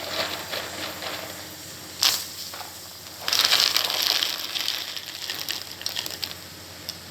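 Soya chunks (meal maker) being stirred into a pot of boiling water: a rough scraping, rustling hiss that comes in bursts, loudest for about a second a little past three seconds in.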